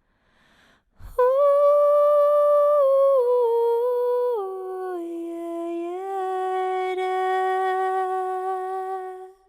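A woman's voice sings one long wordless note for sound healing. It steps down in pitch several times before settling on a lower held note, then fades out near the end.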